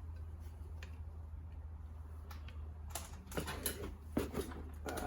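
Removed Hurst shifter being worked by hand through its gates: metal clicking and clunking, sparse at first, then a quick flurry about three seconds in, over a steady low hum.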